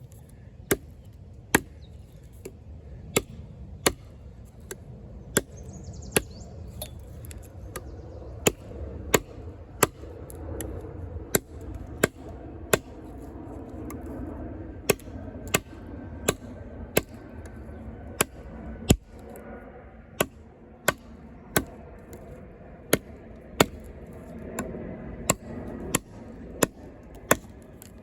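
Off-Grid Knives Caiman XXL, a 7-inch D2-steel bowie blade, chopping repeatedly into a hard piece of wood: a steady run of sharp knocks, a little under one a second.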